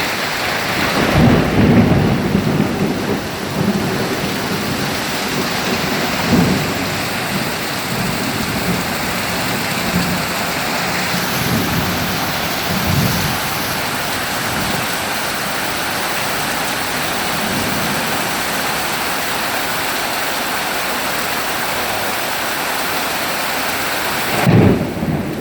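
Heavy rain falling steadily, with thunder rumbling several times, loudest about two seconds in.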